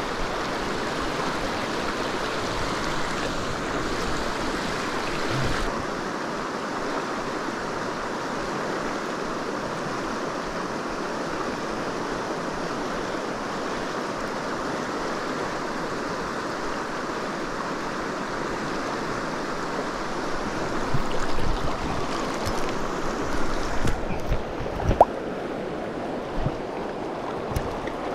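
Shallow mountain river rushing steadily over rocks and riffles. A few low thumps come near the end.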